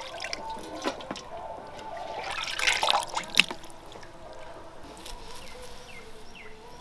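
Water splashing and trickling in a metal pot as raw chicken pieces are washed and squeezed by hand, with a few sharp clicks; it dies down after about three and a half seconds.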